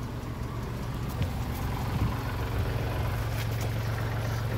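An engine idling steadily at a constant low pitch, with a couple of light knocks about one and two seconds in.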